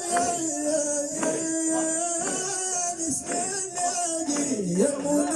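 Sufi devotional chant: voices holding long, drawn-out notes that bend down and back up near the end, over hand percussion struck about twice a second with a jingling hiss.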